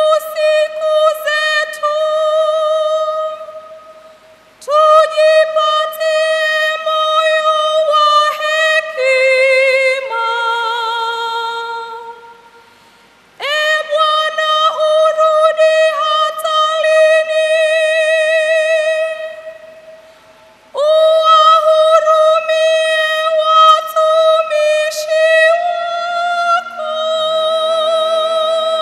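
A woman singing solo through a microphone, a single voice holding long notes with vibrato: the cantor chanting the responsorial psalm between the Mass readings. Four phrases, each followed by a short break for breath.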